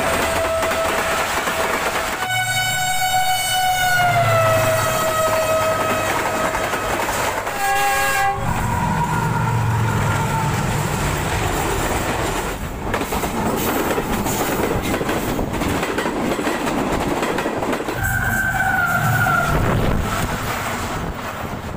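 Trains passing at speed, with a dense rumble and clatter of wheels on rails. Diesel locomotive horns sound several times, most blasts dropping in pitch as they pass.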